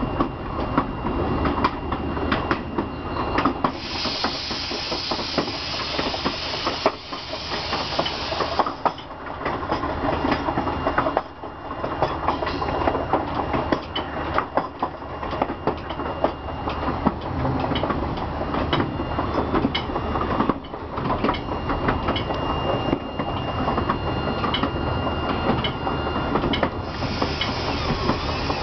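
Chepe passenger train running along the track, heard from on board: a steady rumble of wheels on rails with frequent clicks and clacks. A louder rushing hiss comes in about four seconds in for several seconds and again near the end.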